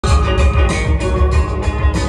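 New wave band playing live through a PA system: a drum kit keeping a steady beat under electric guitar and keyboards, with a heavy low end.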